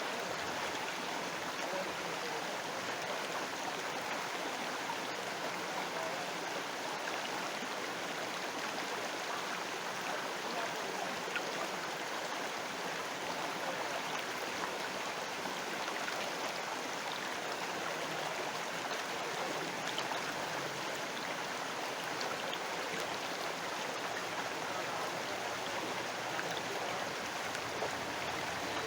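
River water flowing, a steady, unbroken sound of moving water.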